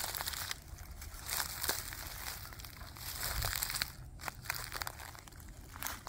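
Footsteps in sneakers crunching and crackling through dry fallen leaves, twigs and acorns, one step after another with brief pauses between.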